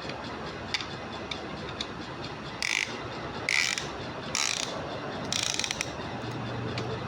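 Ratchet wrench clicking in four short runs, about a second apart, after a few single clicks, over a steady background hiss.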